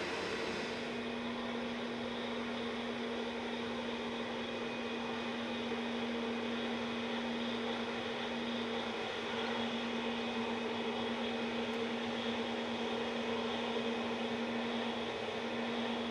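Airliner engines running steadily: a constant hum with a steady low tone that sets in about a second in.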